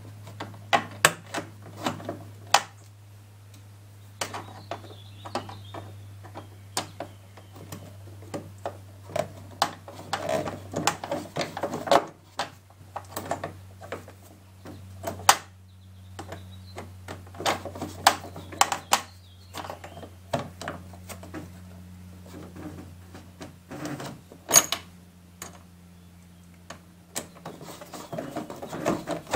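Screwdriver and small metal hardware being handled while fitting hardware at a canoe's wooden deck plate: irregular clicks and knocks coming in short clusters, over a steady low hum.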